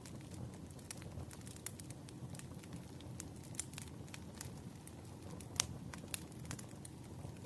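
Firewood crackling in a campfire: irregular sharp pops and snaps over a low steady rumble of the flames, with one louder pop about five and a half seconds in.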